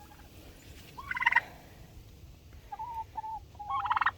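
Domestic turkeys gobbling: a short rattling gobble about a second in and another near the end, with a couple of brief single-note calls between them.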